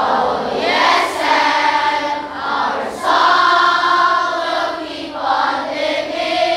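A group of elementary-school children singing together in long held phrases.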